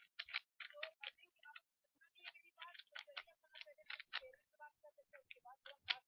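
3x3 Rubik's cube being turned quickly by hand during a speed solve: rapid, irregular clicking as the plastic layers turn and snap into place, several clicks a second.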